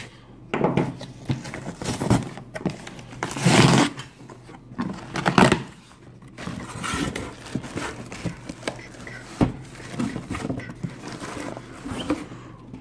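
Cardboard shipping box being opened by hand: irregular scraping, tearing and rustling of cardboard and packing tape, with two louder scrapes around a third of the way in, as the flaps are pulled open and the product box slides out.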